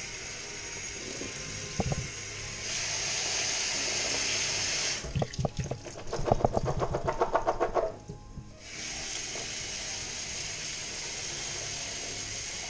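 Kitchen tap running onto black beans in a collapsible colander in a stainless steel sink, with a couple of knocks near the start. About halfway through, the water gives way to a few seconds of rapid rattling and knocking as the colander of rinsed beans is shaken to drain. Then the tap runs steadily again.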